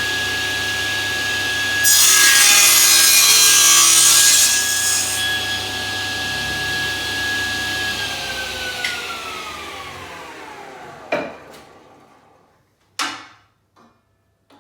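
Electric saw running with a steady whine and cutting through wood for a couple of seconds. The motor is then switched off and winds down, its pitch falling, and two sharp knocks of wood follow near the end.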